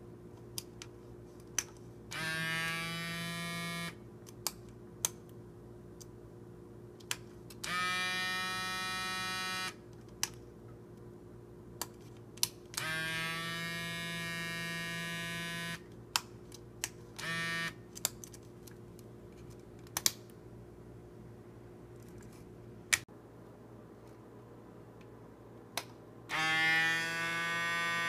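Miniature air-suspension compressor in a 1:24 scale diecast VW Beetle whirring in bursts of a few seconds: four longer runs and one brief one, each rising quickly in pitch as it starts. Sharp clicks fall between the runs, over a faint steady hum.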